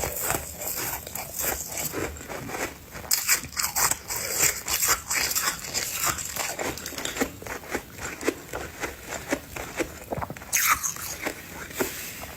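Chunk of ice being bitten and chewed close to the microphone: many rapid, irregular crunches and cracks, with some louder bites about 3 s in and near the end.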